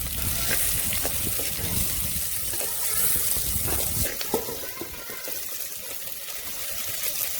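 Sliced onions sizzling in hot oil in a clay pot as they are sautéed, with a few sharp clicks of the stirring spoon. The sizzle eases a little about four seconds in.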